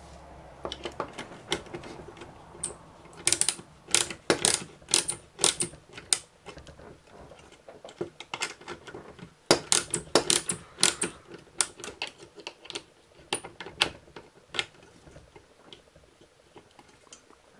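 Small metal hand tools clicking as a lock nut is tightened onto a bolt through a 3D-printed plastic slew ring: irregular clusters of sharp clicks and taps, thinning out near the end.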